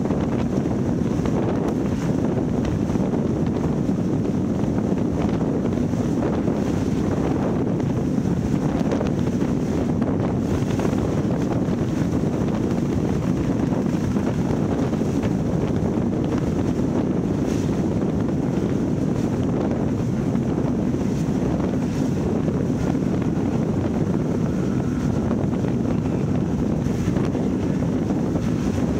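Wind buffeting an action camera's microphone aboard an offshore powerboat running flat out through rough water, a steady, dense rush with the boat's engines and hull spray beneath it.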